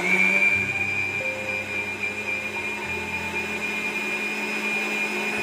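Electric mixer grinder running at a steady speed with a high whine, blending milk, cream, sugar and condensed milk in its jar.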